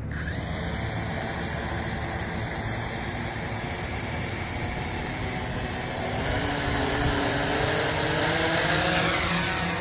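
Opera quadcopter (DJI Phantom clone) spinning its four 9-inch propellers on brushless motors, starting with a sudden whir and running steadily while resting on the ground. About six seconds in the pitch climbs and it grows louder.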